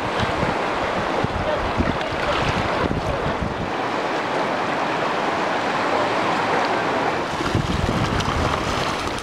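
River water rushing steadily past, with wind buffeting the microphone in gusts at the start and again near the end.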